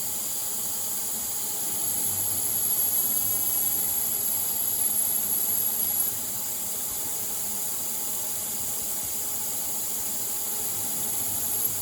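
CNC lathe roughing a V groove in D2 tool steel with a carbide parting/grooving tool under spray-mist coolant: a steady hiss of the mist and cut. From about two seconds in to about six seconds the hiss grows louder and a thin high squeal rides over it while the tool takes a cut, then both drop back.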